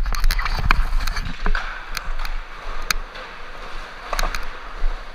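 Skateboard wheels rolling over a concrete skatepark floor, a steady rumble with sharp clicks and knocks. The clicks are dense in the first second and a half, then come only a few times.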